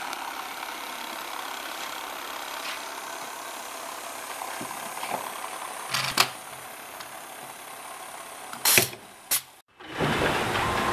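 Bottle corking machine working: a steady mechanical hum with two sharp clacks about six seconds in, then a short loud burst of noise and another clack near nine seconds. After a brief drop-out near the end, louder and busier machine noise.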